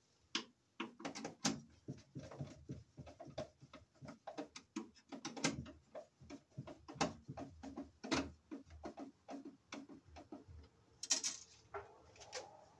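Irregular rustling, scraping and light clicking of 12/2 sheathed electrical cable and its wires being handled and pushed into a metal breaker panel, with a brief louder rub a little after eleven seconds.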